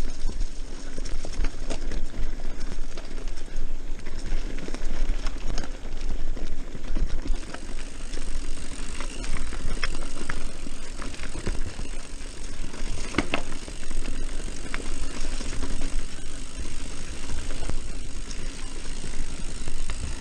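Mountain bike running fast over dirt singletrack: tyres on the packed dirt and the bike's chain and frame rattling over bumps, with wind noise on the camera microphone. A sharper clack about two-thirds of the way through.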